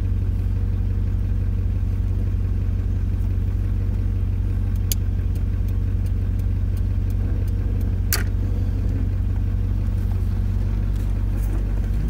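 1997 Land Rover Defender 90's 4.0-litre V8 running steadily at low speed, heard from inside the cab. A few light clicks come through the middle, with one louder click about eight seconds in.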